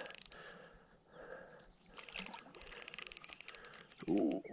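Fishing reel's drag clicking in rapid runs of ticks, a short one at the start and a longer one about two seconds in, as a hooked barbel pulls line off the slackened drag.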